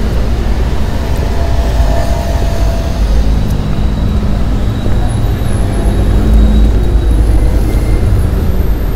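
Road traffic on a city street: a steady low rumble of passing cars.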